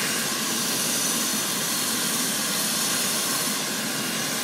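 Medical helicopter running on the ground with its rotor turning: a steady turbine whine over a constant rushing rotor noise.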